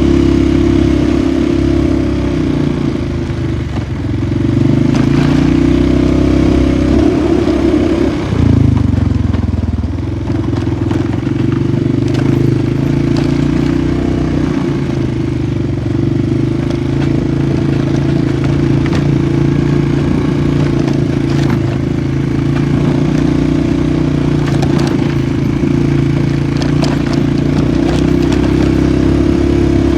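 Polaris 450 ATV engine running while riding, its note climbing for a few seconds and then dropping sharply about eight seconds in before holding steady. Scattered short clicks and scrapes run over the engine.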